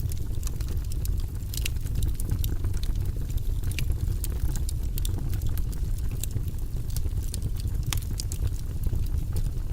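Wood fire burning in a fireplace: a steady low rumble of the flames with frequent, irregular sharp crackles and pops.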